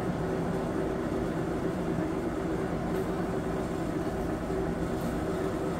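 Electric air blower running steadily, forcing air into a coal forge fire: a constant hum with a rush of air.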